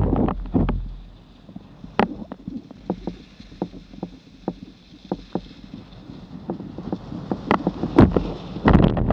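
Alpine skis running over groomed snow at speed: a loud rough rush of skis and wind on the microphone, dropping to a quieter hiss from about a second in with scattered sharp clicks and ticks, then a loud wind rush again near the end as the skier reaches about 50 km/h.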